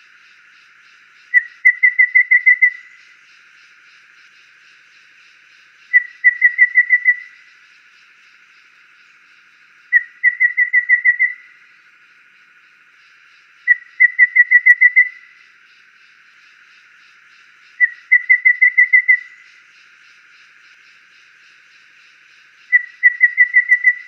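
Golden babbler singing: six phrases about four seconds apart, each a single whistled note followed by a quick run of six or seven even whistled notes on one pitch.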